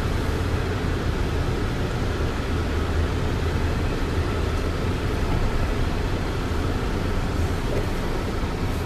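A car running, heard from inside the cabin: a steady, even low rumble of engine and road noise.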